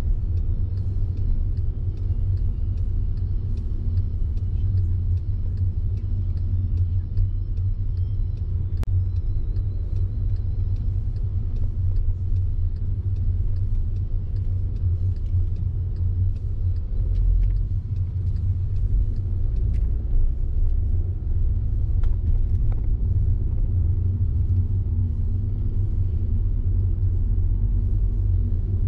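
Steady low rumble of a car driving: engine and road noise, with a few faint clicks now and then.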